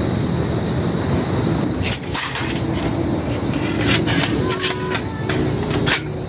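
A steady rushing background, then from about two seconds in, the thin steel plates of a flat-pack fire pit clanking and clinking with short metallic rings as they are slotted together.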